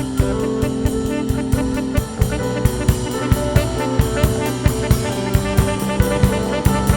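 Jazz-style background music with brass horns over a steady drum-kit beat.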